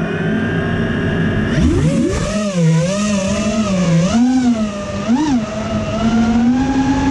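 Brushless motors of a TBS Source One FPV racing quadcopter whining. They start suddenly at a steady idle, jump sharply in pitch about a second and a half in as the quad takes off, then the whine swoops up and down with the throttle and climbs slowly near the end.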